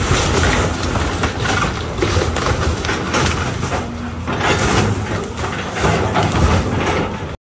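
Volvo hydraulic excavator's diesel engine working under load, with the irregular crunch and clatter of wood and debris as the bucket tears into a house.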